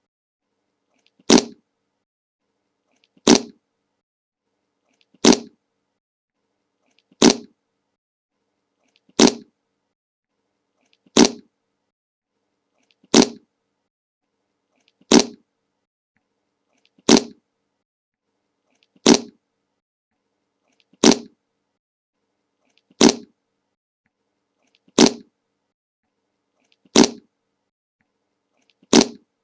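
A short fart sound effect repeated identically about every two seconds, with silence between each one.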